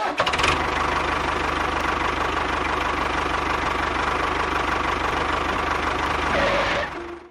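A small engine running steadily with a fast even putter, dying away near the end.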